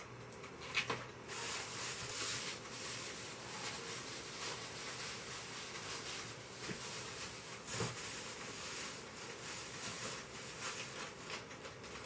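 Someone rummaging in an open refrigerator: irregular rustling and handling of items on the shelves, with scattered clicks and a sharper knock about a second in and again near eight seconds.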